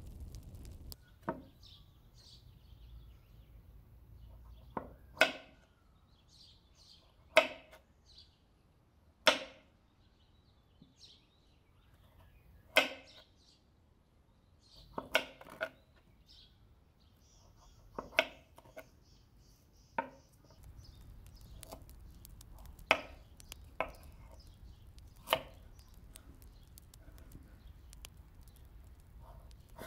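Kitchen knife cutting butternut squash and knocking on a wooden chopping board, one sharp knock every two seconds or so.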